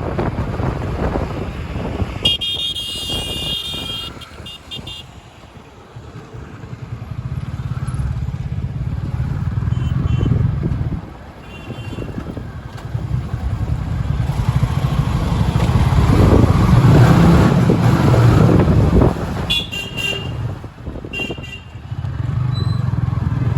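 Road traffic passing: motorcycles and cars go by one after another, their engine noise swelling and fading. A horn sounds for a few seconds near the start, and there are several short horn toots later on.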